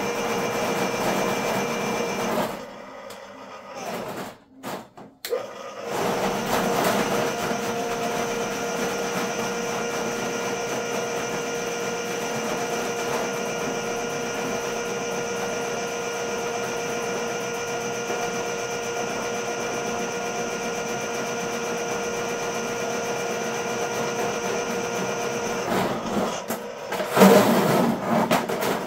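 Ridgid K50 sectional drain machine's electric motor running steadily, spinning its cable down a floor drain. It stops about two seconds in and starts again some three seconds later, and near the end the cable clatters and knocks more loudly.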